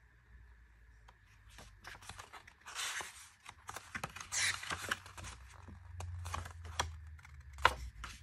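Pages of a small paper photo book being flipped and handled: paper swishing and rustling, with two louder page swishes in the first half, scattered light taps, and one sharp click shortly before the end.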